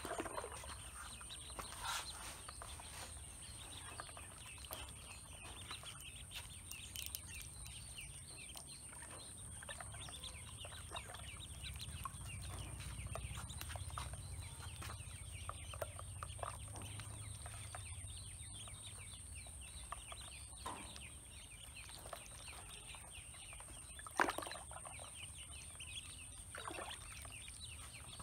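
A group of ducklings peeping constantly, many short high calls overlapping as they paddle and dabble in a shallow basin of water. A steady high tone runs underneath, and there is one sharp click near the end.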